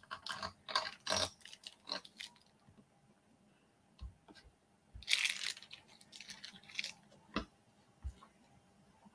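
Handling noise from fitting and adjusting a phone in the clamp of a gooseneck holder: scattered plastic clicks and rustles, in bursts over the first two seconds and again around the middle, with a few single clicks.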